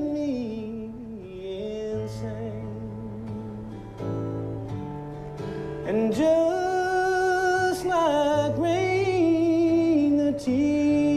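Slow country song with guitar and band. The melody eases off in the first half, then swells into long held notes about six seconds in.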